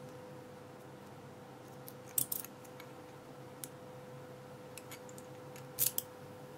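Small metal lock parts of a Kwikset Smartkey core clicking and scraping as they are handled and the sidebar is fitted back in: a few single ticks, with two short bursts of sharp clicks about two seconds in and near the end. A faint steady hum sits underneath.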